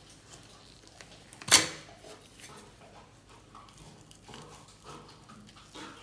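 A plastic wall-box cover snaps off with one sharp crack about a second and a half in. Faint crinkling follows as a plastic-wrapped training sample is pulled out from behind it.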